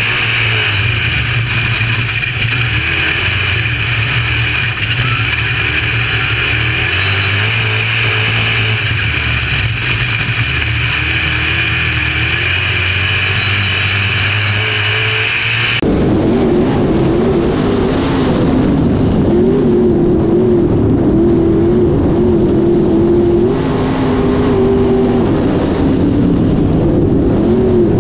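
UMP dirt modified race car's V8 engine running at speed on the track, heard from inside the car, its note rising and falling with the throttle. About halfway through, the sound changes abruptly and loses its high end.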